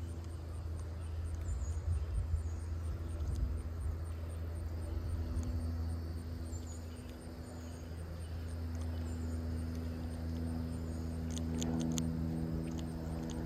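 Outdoor ambience: a steady low motor-like hum that grows a little louder and more tonal in the last few seconds, over faint, even insect chirping and a few small clicks near the end.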